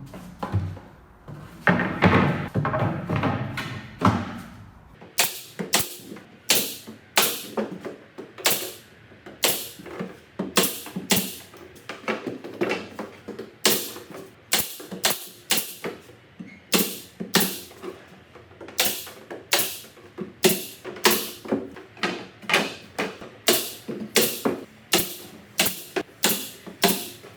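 Wood being nailed: repeated sharp knocks on timber boards, irregular at about one to two a second. A denser, louder clatter fills the first few seconds.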